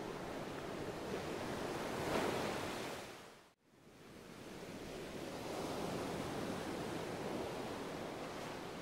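A steady rushing noise, like surf, that swells and eases, with a brief dropout to near silence about three and a half seconds in.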